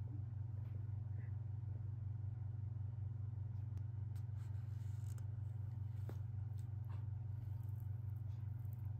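A steady low hum, with a few faint clicks over it.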